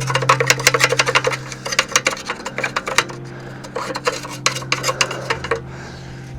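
Metal camp cookware and utensils clattering and scraping in quick runs of clicks, which stop about five and a half seconds in, over a low steady hum.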